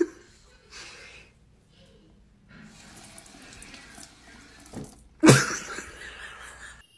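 Thin stream of water trickling from a bathroom faucet into the sink basin, faint and steady. About five seconds in, a sudden loud sharp burst, sneeze-like, tails off over a second or so before the sound cuts off.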